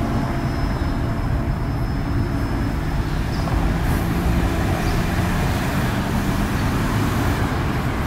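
Steady rumble of road traffic, even in level, with no bird calls.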